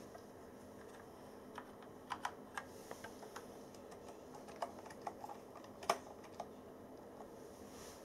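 Keys of Tesoro Lobera gaming keyboards pressed one at a time: about a dozen faint, irregular clicks, the loudest near six seconds in.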